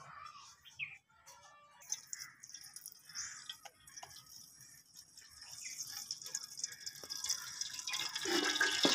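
Melted ghee poured from a metal tin into an aluminium cooking pot: a thin trickling stream with a few light clinks of the tin. A steady high hiss builds up over the last few seconds.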